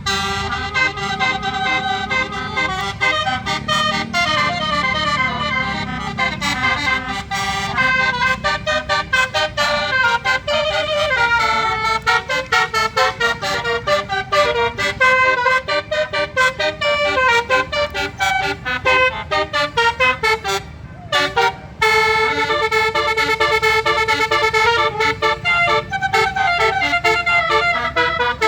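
An Indonesian bus's basuri melody horn playing a tune as a fast, continuous run of loud horn notes. The notes break off for about a second roughly three-quarters of the way through, then carry on.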